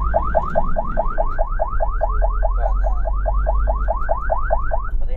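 Ambulance's electronic siren sounding in a fast yelp: a rising sweep repeated about five times a second, cutting off near the end. A steady low vehicle rumble runs underneath.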